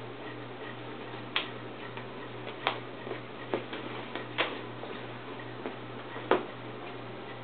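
A handful of sharp clicks and taps, about five spread over several seconds, from a cat rolling about and pawing at a cardboard scratching pad. A low steady hum runs underneath.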